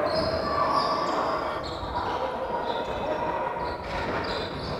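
A basketball game heard across a large hall: a ball bouncing on the wooden floor and players' voices, echoing in the hall.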